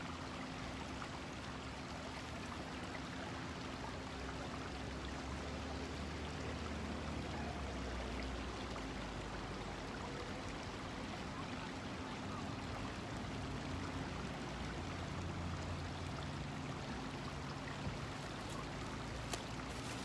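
Shallow creek water running steadily over a rocky riffle, with a low rumble underneath.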